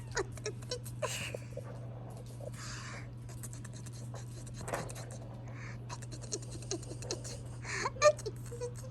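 Young British shorthair kittens moving about on their bedding: a run of small scratching clicks and soft rustles, with a few brief faint squeaks and a louder short squeak about eight seconds in.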